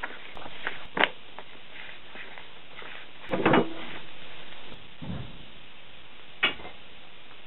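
Scattered handling knocks and clicks of parts being moved about on a workbench: a sharp tap about a second in, a cluster of louder knocks in the middle, a duller thump a moment later and one more click near the end.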